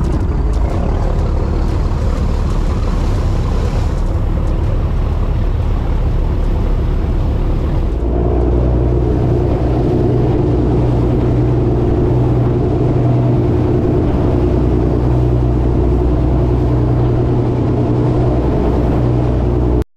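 Fishing boat's engine running under way with water rushing in its wake. About eight seconds in, the engine settles into a steadier, slightly louder drone as the boat gets up to speed.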